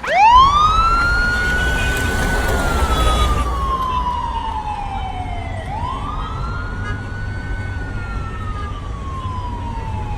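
Police siren wailing. It starts suddenly, climbs quickly to a high pitch, holds there, then falls slowly, and it rises again twice, over a low steady rumble.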